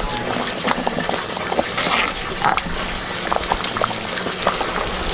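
A pot of food bubbling at the boil, with irregular little pops and crackles.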